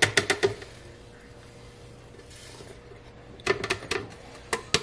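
Quick light taps and knocks of a plastic blender jar held over a plastic funnel, knocking ground onion powder out into a spice jar. There is a short run of taps at the start, a near-quiet pause, then another run of taps in the last second and a half.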